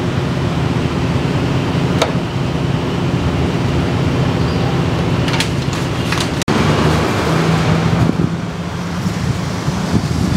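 Road traffic: a steady low rumble of passing vehicle engines, with a couple of short sharp clicks.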